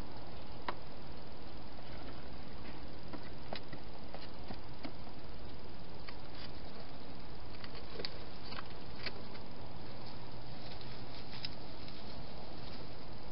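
Irregular small clicks and taps from a wild hedgehog feeding and moving about inside a clear plastic feeding box, over a steady hiss.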